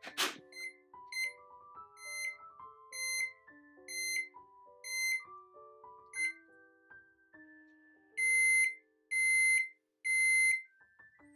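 Toshiba vacuum-pressure IH rice cooker: the lid snaps shut with a click, then the control panel gives a run of short beeps, one for each button press, as the low-temperature program is set to 60 °C for 40 minutes. Near the end come three longer, louder beeps as the program starts. Soft background piano music plays underneath.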